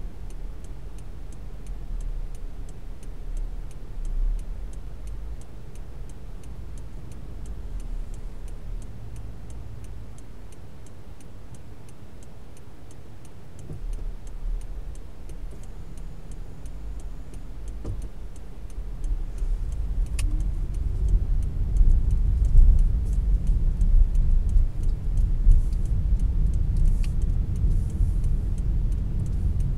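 Car driving in city traffic: low engine and road rumble, subdued at first while the car is slow or stopped, then louder as it picks up speed about two-thirds of the way in. A regular high ticking runs through roughly the first half and then stops.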